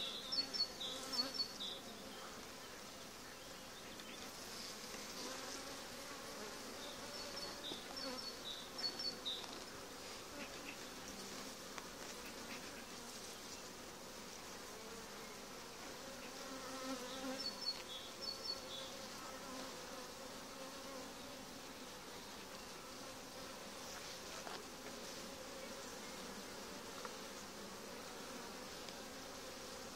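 Honeybees from an opened hive buzzing in a low, steady hum around a brood frame lifted out and thick with bees. A few short bursts of high chirping come over it near the start and twice more.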